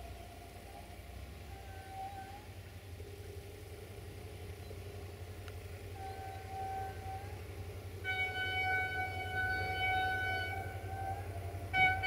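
Air horn of an approaching GM diesel locomotive sounding several blasts: short ones about a second in and about six seconds in, then a long blast of about three seconds near the end. The locomotive's diesel engine rumbles low underneath and grows louder as it nears.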